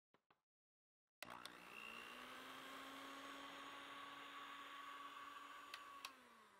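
Electric hand mixer whipping egg whites and sugar for meringue in a glass bowl. It switches on about a second in and runs with a steady motor hum. Near the end there is a click, and the motor winds down with its pitch falling.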